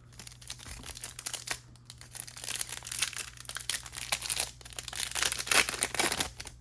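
A Panini Select basketball card pack's wrapper being torn open and crinkled by hand: an irregular crackling that comes in waves and is loudest near the end.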